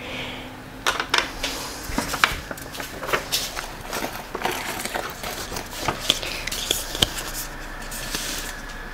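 Handling noise of small beauty-sample packaging: a folded paper sample card rustling and crinkling, with scattered light clicks and taps of small items being picked up and put down.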